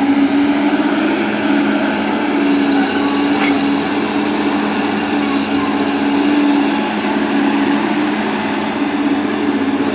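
Diesel engine of heavy earthmoving machinery running steadily, a constant droning hum.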